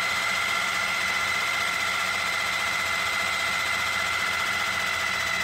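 Food processor running steadily, its motor and blade whining at one constant pitch as it purees boiled taro with a little ice water into poi.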